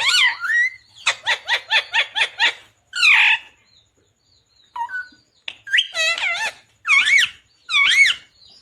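Ringneck parakeet calling: a quick run of about seven short chirps, a harsh squawk, then after a brief pause a string of warbling, up-and-down calls.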